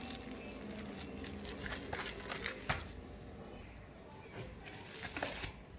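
Packaging rustling and crinkling as a mini wireless keyboard is unwrapped, with scattered small clicks and taps of handling.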